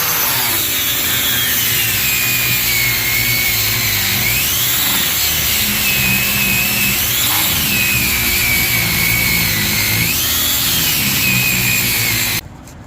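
Power saw cutting through a seized U-joint, its motor whine sagging in pitch and recovering several times as the blade bites into the metal. It stops abruptly near the end.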